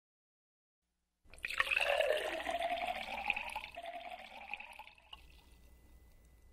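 Tea poured from a porcelain teapot into a porcelain cup, starting about a second in. The sound rises in pitch as the cup fills, then thins and fades as the pour ends.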